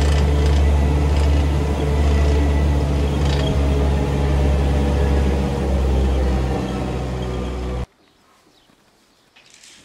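Small engine of a ride-on farm cart running steadily as it is driven, a low even drone; it cuts off suddenly about eight seconds in, leaving faint background sound.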